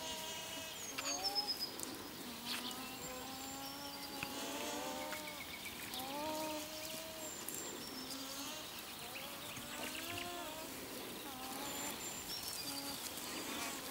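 Several alpacas humming: many short, overlapping hums that rise and fall in pitch, with small birds chirping high above them.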